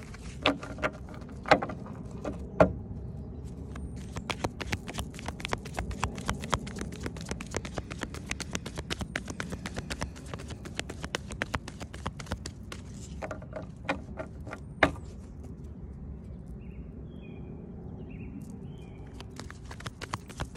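A deck of cards being shuffled by hand: a long run of rapid, light clicking as the cards slap together, with a few louder single knocks near the start and once more later on.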